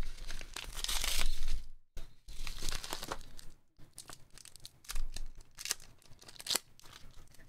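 Padded bubble mailer being opened and emptied: dense paper-and-plastic rustling for about the first two seconds, then scattered rustles and a few sharp clicks as plastic card holders and bubble wrap are handled.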